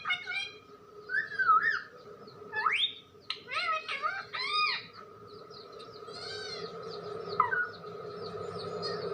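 Pet parrot giving a run of whistles and chirpy calls, several gliding up in pitch, bunched in the first five seconds. After that come a few fainter calls, over a steady background hum.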